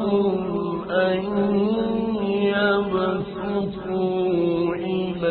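Man reciting the Quran in a melodic, chanted style, holding long ornamented notes that bend up and down.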